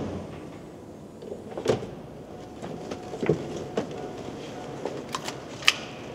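Pickup truck door being opened and someone climbing into the driver's seat: a few separate knocks and rustles, then a quick run of sharp clicks near the end.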